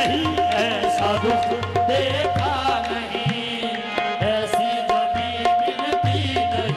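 Qawwali music: tabla playing a steady rhythm with deep bass strokes that glide upward in pitch, under a long held melodic note and an ornamented, bending melody line.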